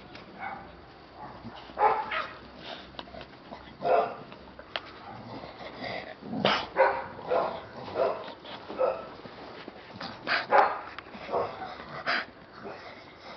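American Staffordshire Terriers, adults and puppies, barking and yipping in play, in many short irregular bursts about one or two a second.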